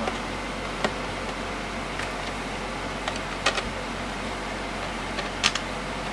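A few sharp little clicks and taps of hands handling a Farmtek Polaris timer's plastic case while refitting an O-ring, the two loudest about three and a half and five and a half seconds in, over a steady background hum.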